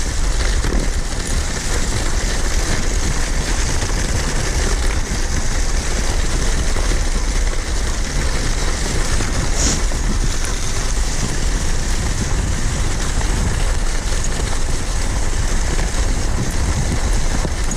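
Steady hiss and rumble of a kicksled on the move, its runners sliding over snow, with wind buffeting the microphone.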